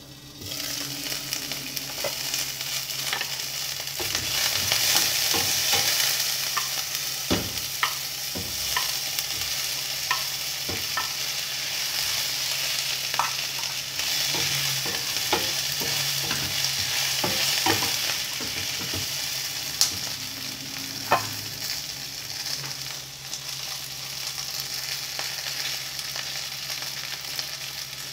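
Eggplant pieces frying with a steady sizzle, which swells as the glass lid is lifted off at the start. A wooden spatula stirs them, with many sharp clicks and knocks against the pot.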